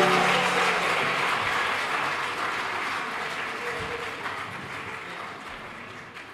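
Audience applauding after a choir performance, the clapping fading away steadily. The choir's final sung chord dies out just at the start.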